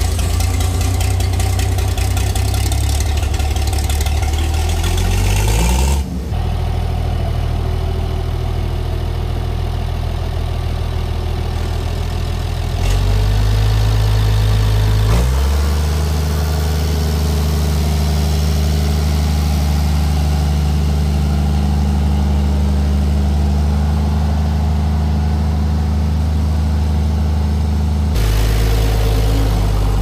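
International Harvester 826 tractor engine running just after a cold start. Its pitch shifts several times as the engine speed changes.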